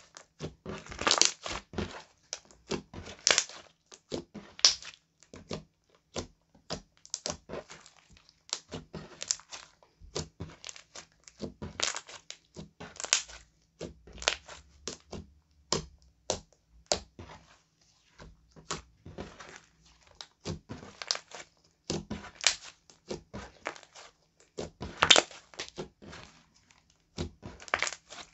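Glossy slime being kneaded, stretched and squeezed by hand, giving an irregular run of sticky squelches, crackles and sharp little pops, some much louder than others.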